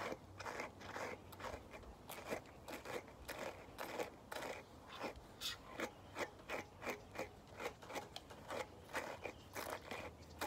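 Slicker brush raking through a Bichon Frise's curly coat in short, scratchy strokes, about two to three a second.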